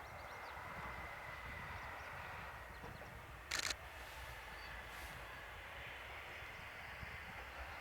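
A single camera shutter click about three and a half seconds in, the loudest sound, over a faint steady low rumble.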